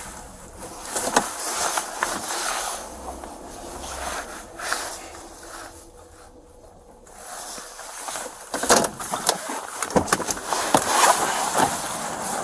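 Rustling, scraping and knocking of a body-worn camera rubbing against the wearer's jacket as he moves, quieter for a moment about six seconds in, then busier again from about eight seconds.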